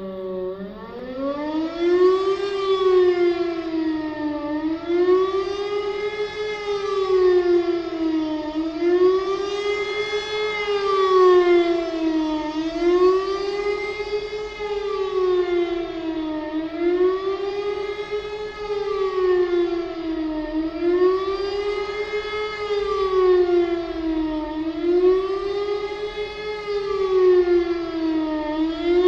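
Civil-defence siren sounding the German 'Warnung' signal, a wailing tone that rises and falls in pitch. It climbs about a second in, then swells up and down about every two seconds. The signal warns the population of a danger; here it is sounded as a scheduled test.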